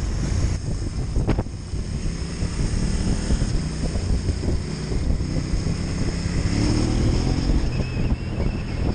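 Adventure motorcycle engine running steadily on the move, with wind noise on the microphone; the revs rise briefly about seven seconds in.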